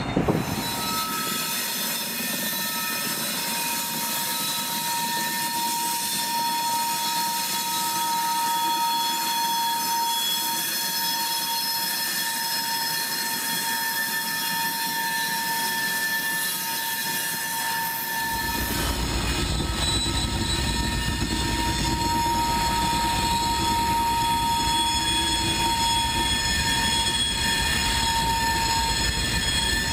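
Freight train rolling past: double-stack intermodal cars with a steady, high-pitched wheel squeal of several held tones. About eighteen seconds in, a deep rumble joins as diesel locomotives pass close by.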